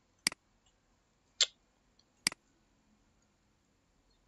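Computer mouse clicking three times, about a second apart, the first and last as quick double clicks.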